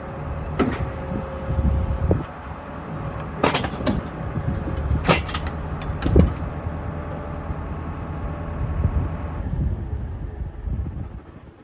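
Diesel tractor engine running under loader work while logs are moved onto a log rack, with three sharp wooden knocks of logs landing. The engine sound thins out and drops off near the end.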